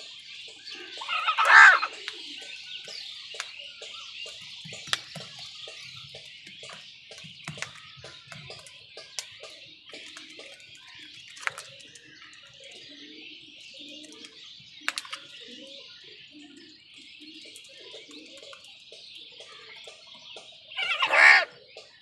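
House crows calling at a food bowl: two loud, harsh caws, one about a second in and one near the end, over a steady high-pitched background hiss, with a few sharp taps in between.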